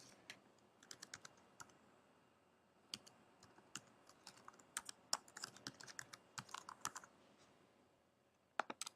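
Faint computer keyboard typing, keystrokes coming in short quick runs as login details are entered, with a couple of last clicks near the end.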